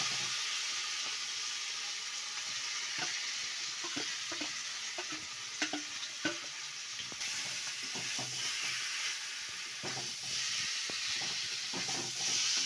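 Boiled, mashed taro sizzling in hot oil with tempered mustard seeds in a metal wok, stirred and scraped with a spatula. The spatula clicks against the pan at irregular moments, most sharply twice around the middle.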